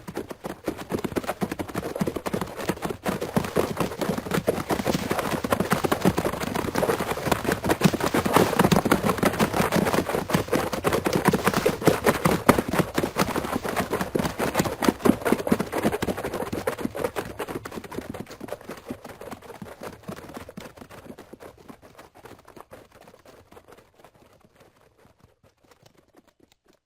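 Hooves of several cattle trampling over dirt and sand: a dense, continuous run of hoofbeats that grows louder toward the middle and then fades away as the herd passes.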